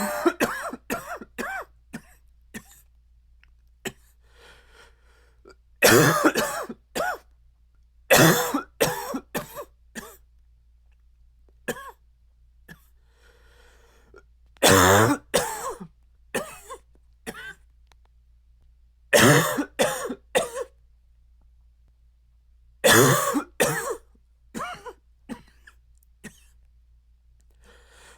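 A man's dry, barky cough in repeated fits, about six in all. Each fit is a loud first cough followed by a few shorter ones, with quiet pauses between the fits.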